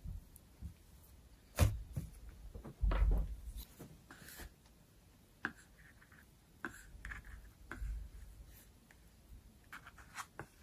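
Hands handling soft yeast dough on a wooden board: peeling the scraps away from cut donut rounds and lifting the rounds, with light rubbing and a few knocks on the table. The loudest knocks come about a second and a half in and around three seconds in.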